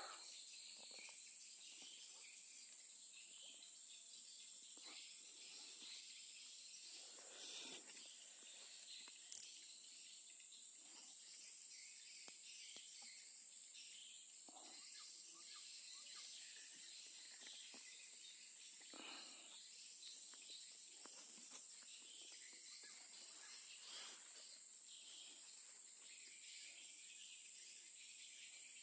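Faint steady high-pitched chorus of crickets or similar insects, with a few sharp clicks and soft rustles.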